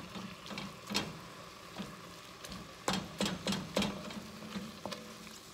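Wooden spatula scraping and knocking against an enamelled pot while ground turkey is stirred and broken up as it browns, over a light sizzle. The sharp knocks come singly about a second in, then four in quick succession around three seconds in, with a steady low hum underneath.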